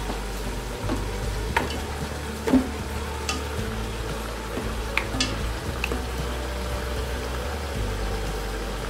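Beef bones and meat sizzling in hot oil with onions and tomatoes in an aluminium pressure cooker, over a low steady rumble. A wooden spoon clicks against the pot now and then, most sharply about two and a half seconds in.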